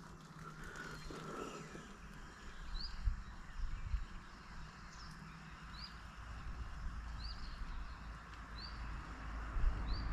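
A bird repeating a short, high, rising call about once a second, over steady outdoor background noise and low rumble.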